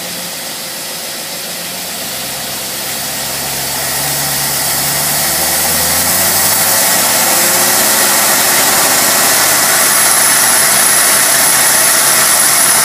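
Test engine running on a 1920 Holley single-barrel carburetor, in gear and pulling against a load of about 250 to 300 foot-pounds. It grows steadily louder over the first several seconds as the load comes on, then holds steady at full pull.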